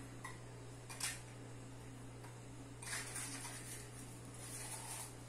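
Faint kitchen handling sounds. A light knock about a second in, then soft clinking and rustling as a plate of grape tomatoes is handled over a metal baking pan, over a steady low hum.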